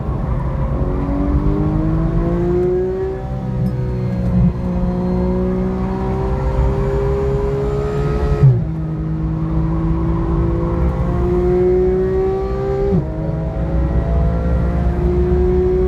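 2014 Porsche 991's flat-six engine heard from inside the cabin, pulling hard under acceleration with its pitch climbing. The pitch drops suddenly twice, about eight and a half and thirteen seconds in, as it shifts up.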